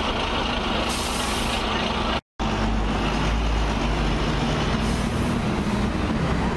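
Diesel double-decker buses in street traffic: a Volvo B9TL passing with a short high hiss about a second in, then, after a brief dropout in the sound, a Dennis Trident pulling in with a stronger, deeper engine note.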